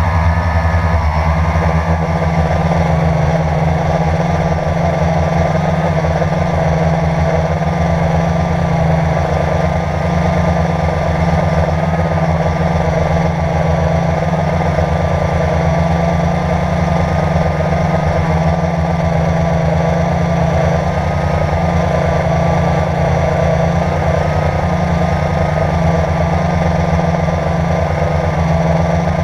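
Drone's electric motors and propellers whining steadily as heard from the camera on board, with the pitch wavering slightly as the drone holds its position.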